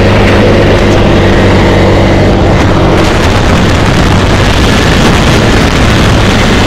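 Quad bike (ATV) engine running loud and steady as the quad is ridden, its pitch holding level throughout.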